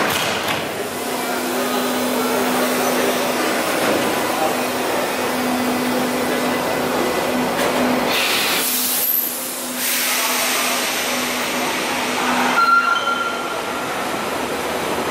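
A 1927-built type BII U-Bahn train pulling out of an underground station, with its electric motors humming steadily and the cars rumbling as it gathers way. A short higher tone comes in near the end.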